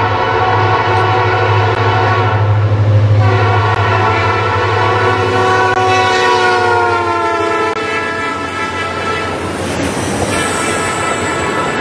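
Diesel freight locomotive passing while sounding its multi-chime air horn in long blasts, the chord dropping in pitch as it goes by, over the low drone of the engine. After a short break, wheels rumble and clatter, and the horn sounds again near the end.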